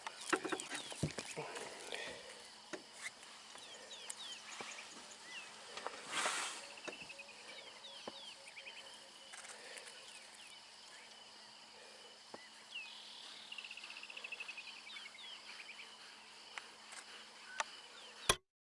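Bush ambience of small birds chirping, with short falling calls and quick trills, over a faint steady low hum. A few sharp clicks come in the first two seconds and a brief hiss about six seconds in. The sound cuts off abruptly near the end.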